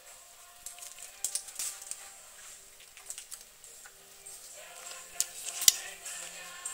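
Scratchy rustles and sharp clicks of a ferret on a harness and leash moving about over a rug and floor tiles and under a curtain: a cluster about a second in and the loudest clicks about five seconds in.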